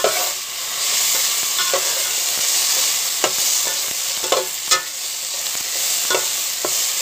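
Chopped onion, garlic, ginger and tomato sautéing in oil in a metal pot, a steady sizzle, while a ladle stirs them with several sharp clinks and scrapes against the pot.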